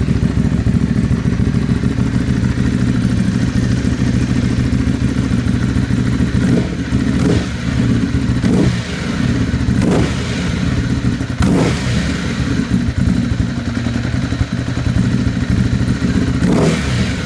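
2014 Ducati Hypermotard SP's L-twin engine running steadily, with a handful of short sharp sounds over it from about a third of the way in.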